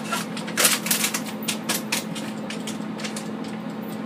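Contents of a bag poured into a rice cooker's inner pot: a patter of small clicks, densest in the first second, then scattered. Underneath is the steady hum of an air fryer running.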